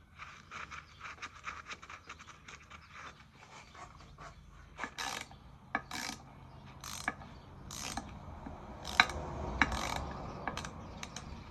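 Hand socket ratchet clicking as a bolt is worked: quick runs of clicks at first, then slower, separate swings about once a second.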